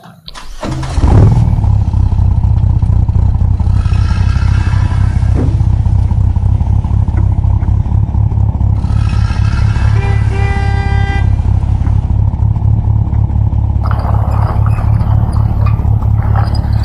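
Truck engine sound effect running steadily, with stretches of honking horn tones over it about four seconds in, around ten seconds in and near the end.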